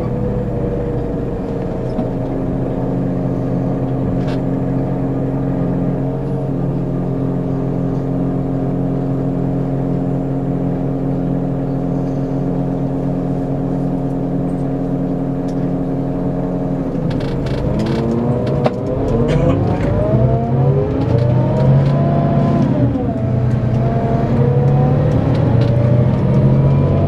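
Scania K410EB6 coach's straight-six diesel holding a steady note, then pulling away under hard acceleration about two-thirds of the way in, its pitch rising, dropping once at a gear change and rising again.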